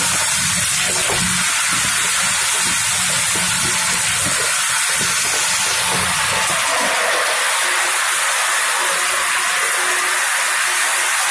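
Steady loud hiss from a hot-air caramel popcorn coating machine running, with a low rumble under it that fades out about seven seconds in.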